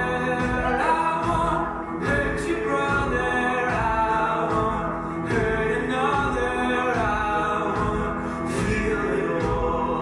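Music with singing over a steady beat.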